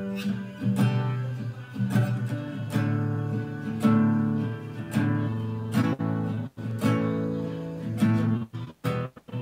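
Nylon-string acoustic guitar strummed in a steady rhythm, a chord struck about once a second and ringing between strokes, turning choppy with short breaks near the end.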